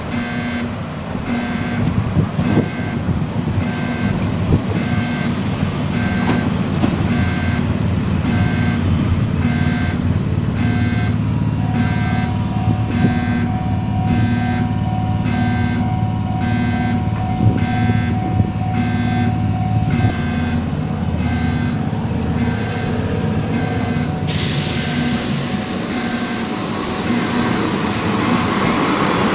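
Electronic level-crossing alarm beeping evenly, about one and a half beeps a second, the sound that earns this crossing its 'time bomb' nickname. A low rumble runs under it, and about four-fifths of the way in a train's hiss comes in as it pulls up.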